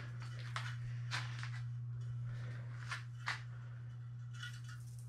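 Metal lathe running while turning steel: a steady low hum, with a few faint scattered ticks.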